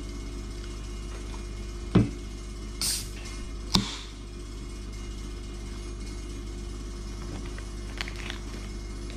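Aluminium soda can being opened: a sharp click about two seconds in, a short fizzing hiss, then a second sharp crack just under four seconds in as the tab is pulled, with a brief hiss after it. A steady low hum runs underneath, and there are faint small clicks near the end.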